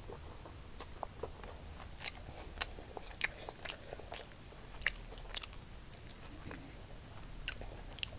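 Close-miked eating sounds of fried rice: irregular sharp, wet clicks and crackles, a few each second.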